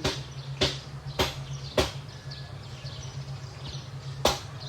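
A series of sharp knocks: four about every half second, then one more a couple of seconds later, over a steady low hum and faint bird chirps.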